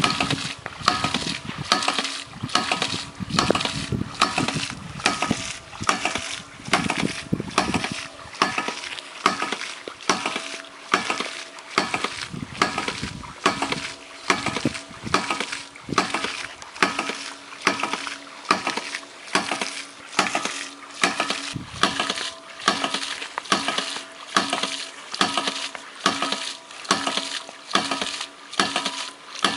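Stainless-steel hydraulic ram pump running: its waste valve slams shut with a sharp metallic clack a little more than once a second, with water spurting from the valve between strokes. Each slam is the water-hammer pulse that drives water up the delivery pipe.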